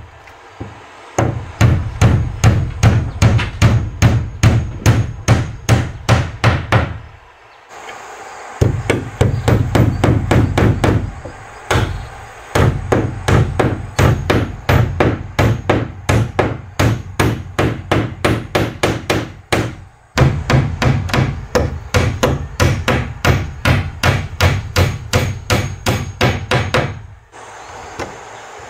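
Claw hammer driving nails into a wooden plank door and its frame, in quick runs of about four strikes a second. Each strike is a sharp knock with a hollow thud from the wooden boards, and there are short pauses between runs.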